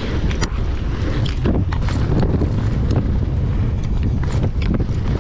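Mountain bike descending a dry dirt trail at speed: heavy wind buffeting on the microphone over a steady tyre rumble, with many short sharp clicks and rattles from the bike over bumps.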